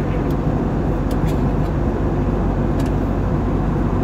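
Airliner cabin noise in flight: the steady, even rush of engines and airflow heard from a window seat.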